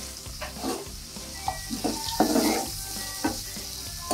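Chopped onions sizzling in hot ghee and oil in a non-stick kadhai over a high gas flame. A wooden spatula scrapes and knocks against the pan now and then as they are stirred.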